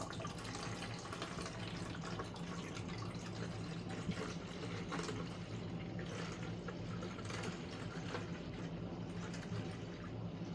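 Water running steadily into an espresso machine's removable water tank as it is filled to the descaling mark, with a steady low hum underneath.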